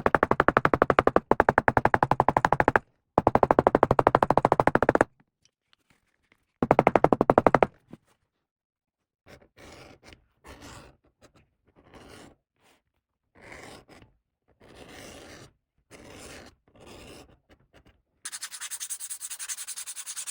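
Leatherworking tool sounds: a loud, rapid, even rattle in bursts over the first several seconds, then a series of separate short rubbing or scraping strokes, then a faster, hissier rattle near the end.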